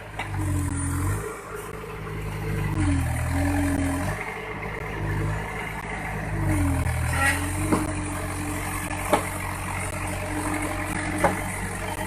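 Case 580 Super M backhoe loader's diesel engine running and revving up and down several times, with a few sharp knocks in the second half.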